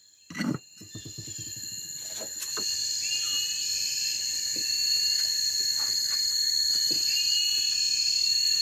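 Insects chorusing in a steady high-pitched trill with chirps over it, swelling gradually louder, with a brief knock about half a second in.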